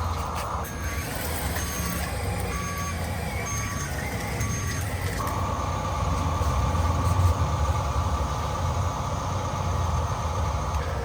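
Electronic reversing beeper of a Huina RC construction vehicle, about five short beeps roughly a second apart, over the steady whine and rumble of its electric drive; the beeping stops about five seconds in while the motor whine carries on.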